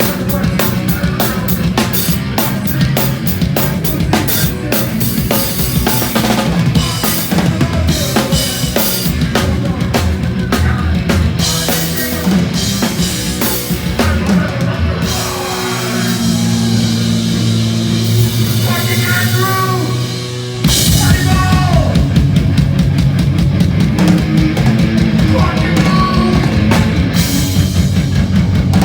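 Hardcore punk band playing live: fast, driving drums with bass and guitar, easing into held chords partway through, then the full band crashes back in loud about two-thirds of the way in.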